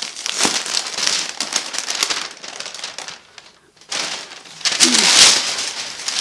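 Tissue paper crinkling and rustling as it is pulled open from around folded clothes, in irregular bursts with a brief lull partway through and the loudest rustle about five seconds in.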